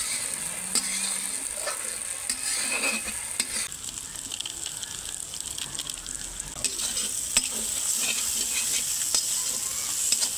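Spice masala frying in oil in a metal kadhai, sizzling steadily, while a metal spatula scrapes and taps against the pan as it is stirred: the masala being bhuna-fried for a fish curry.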